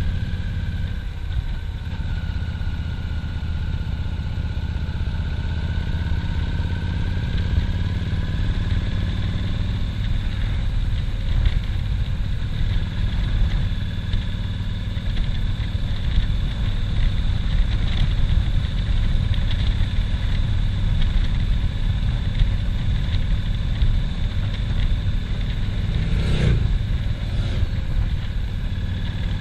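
Cruiser motorcycle's engine running steadily at road speed, heard from the rider's seat over a dense low rumble. A brief falling whoosh sounds near the end.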